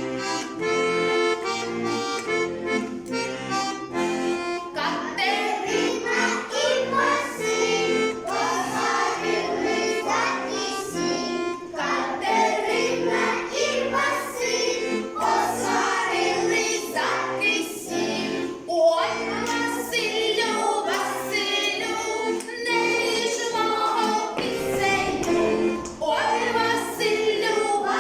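Accordion playing a Ukrainian folk tune. About five seconds in, a group of voices starts singing along with it.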